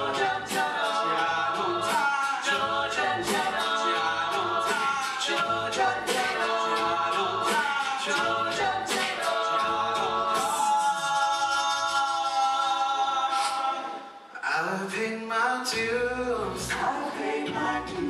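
Mixed male and female voices singing an a cappella song in close harmony, over vocal percussion (beatboxing) keeping a steady beat. About ten seconds in the voices hold one long chord, break off briefly, then the singing picks up again.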